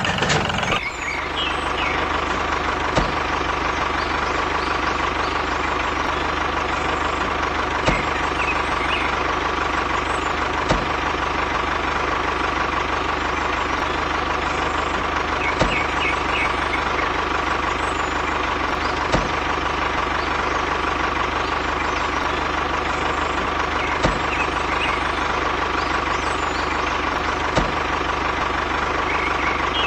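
Small electric motor running steadily with a constant whine, with a sharp click every few seconds.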